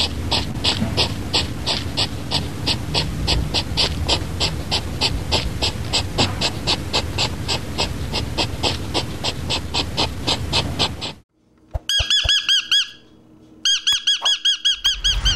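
Animal calls. First a long, even series of high chirps, about four or five a second, over a low rumble. Then, after a short break, a different animal gives quick runs of high squeaky calls in two bursts.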